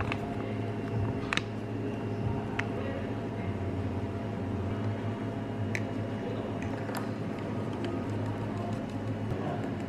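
Cafe work-space room tone: a steady low appliance hum, with a handful of light clicks and taps.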